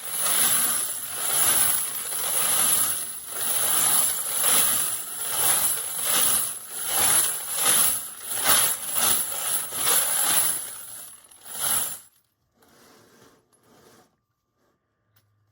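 Spent brass cartridge cases rattling and clinking together in repeated swells, about one a second. The clinking stops about 12 seconds in, followed by a few faint clinks.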